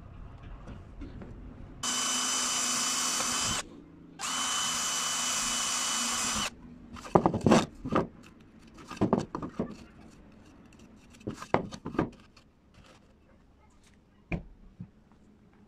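An electric drill motor running in two short bursts of about two seconds each, starting and stopping abruptly with a steady high whine. After the bursts come several seconds of irregular knocks and clatter, then a couple of sharp clicks.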